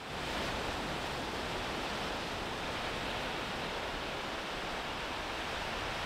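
Ocean surf breaking on the beach, a steady hiss without pauses.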